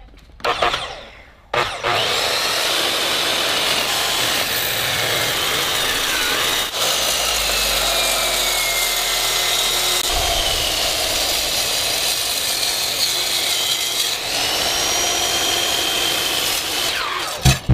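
Power tool cutting through metal: a loud, steady grinding noise with a whine that dips and rises in pitch as the cut loads and frees it.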